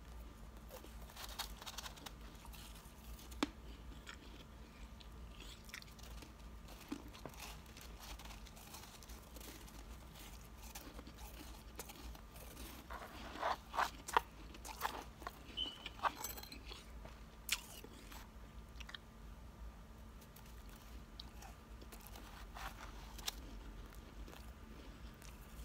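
Close-up crunching and chewing of soft, snow-like ice, as scattered crackly bites with a denser, louder run of crunches about halfway through.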